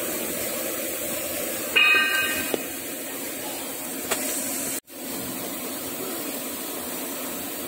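Metal lathe running with cutting coolant pouring onto the spinning workpiece: a steady whirring hiss. A brief high squeal sounds about two seconds in.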